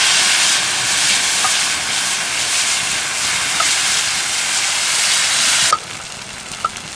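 Liquid soup ladled into hot oil in a blackened iron wok over a wood fire, sizzling loudly as it hits the oil. The sizzle drops sharply about six seconds in and goes on more quietly, with a few light clinks of the spoon against the pots.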